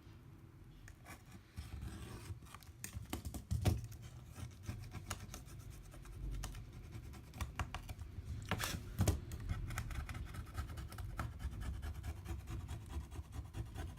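Irregular scratching and clicking of a tool scraping old adhesive and dust off an iPad mini's frame, with a couple of louder scrapes.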